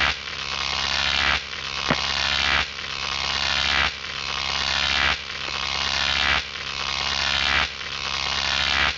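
Intro soundtrack under a title card: an electronic swell that repeats about every second and a quarter, each time rising and then cutting off sharply, over a steady low hum.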